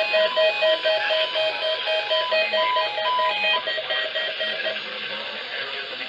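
Several NOAA weather alert radios beeping their alert tones at once, rapid repeated beeps at different pitches overlapping, set off by a Required Weekly Test. The higher beeps stop about three and a half seconds in and the lower ones about a second later, leaving a hiss from the radio speakers.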